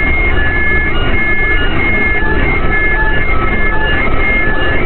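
Harsh noise music: a loud, unbroken wall of static with a heavy low rumble, crossed by short high steady tones that switch on and off irregularly.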